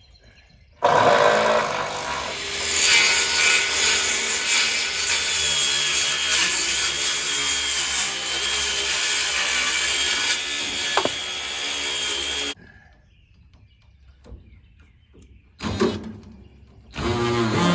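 Power saw cutting through a wooden board for about eleven seconds, then stopping abruptly; a brief sound follows a few seconds later.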